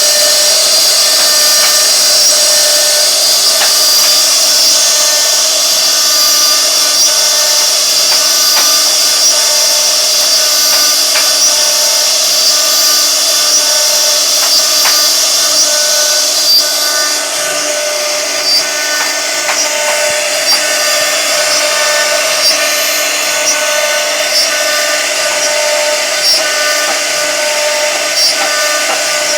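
CNC router cutting wood: a steady high spindle whine with the stepper motors' tones switching on and off as the cutter changes direction. The whine drops a little in level about two thirds of the way through.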